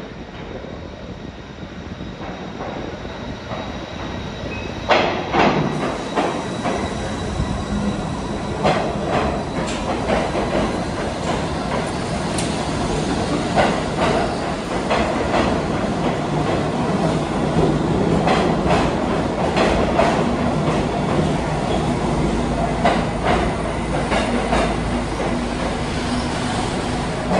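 R68 subway train rolling into the station: a rumble that grows louder as it approaches, then from about five seconds in, a run of sharp irregular clicks from its wheels crossing rail joints as the cars pass alongside.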